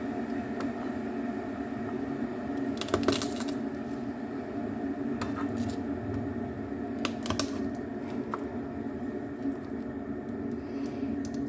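Knife tapping and knocking on a wooden chopping board while cutting garlic, in scattered clusters of sharp clicks, over a steady background hum.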